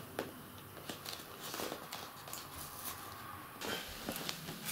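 Faint rustling and light taps of hands pressing masking tape down onto the PVC fabric of an inflatable dinghy.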